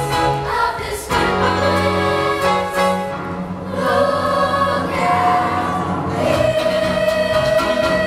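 Stage cast singing together as a choir over instrumental backing, with long held notes and chord changes.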